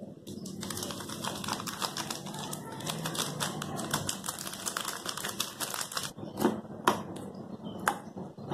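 A foil-plastic Maggi masala sachet crinkling as it is torn and shaken out over a bowl, a rapid run of crackles lasting about five seconds. Near the end, a few separate clicks of a steel spoon against the steel bowl.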